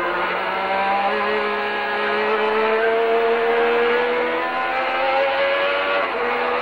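Renault EF1 1.5-litre turbocharged V6 of a 1983 Renault RE40 Formula 1 car at racing speed, heard onboard. The revs climb steadily, with breaks in the pitch about half a second in, about four and a half seconds in, and just after six seconds.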